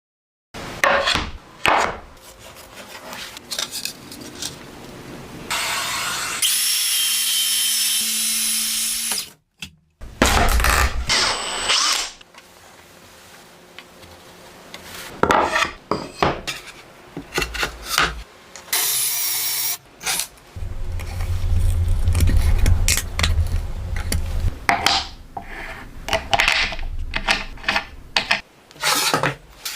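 Power tools working wood in a string of short clips: a circular saw running and cutting, with a steady high whine for a few seconds about a third of the way in, a heavier low running stretch later, and knocks and scraping of tools on boards between.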